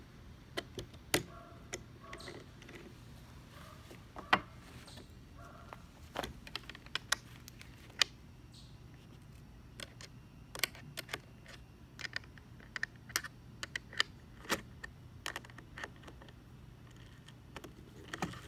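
Irregular sharp metallic clicks and taps from a small wrench working the bolts on a scabbard's mounting brackets as they are loosened, some coming in quick clusters.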